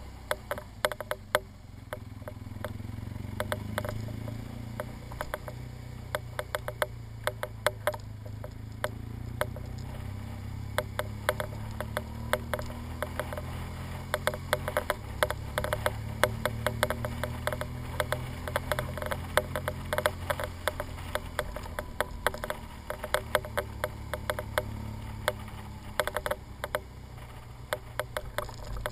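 BMW R1200GS flat-twin engine running at low revs while riding, with its note shifting about halfway through. A dense, irregular clicking and rattling lies over it throughout and makes the loudest peaks.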